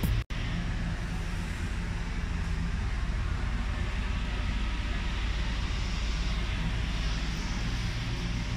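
Steady mechanical drone: a low hum under an even hiss, with no change in level.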